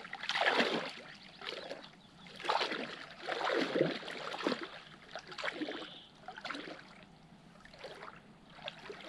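Lake water splashing and sloshing as a person moves through it, a series of irregular swishes about a second apart that grow fainter toward the end.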